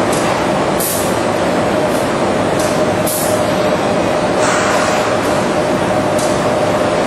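Automated assembly-line machinery running steadily, a constant hum over a wide rushing noise, with several short high hisses.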